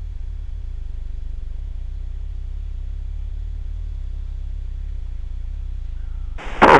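Steady low drone of an aircraft engine in flight, unchanging throughout. A radio voice breaks in right at the end.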